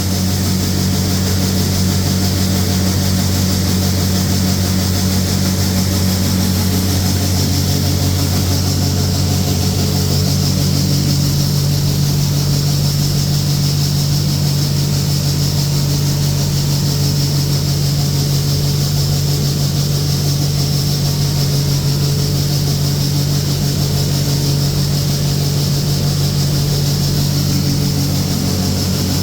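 A large farm machine's engine runs steadily under load, a low even drone. Its pitch settles slightly lower about seven seconds in.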